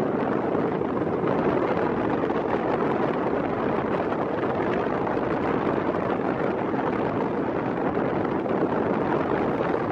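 Steady roar of strong wind and rough sea, with wind buffeting the microphone.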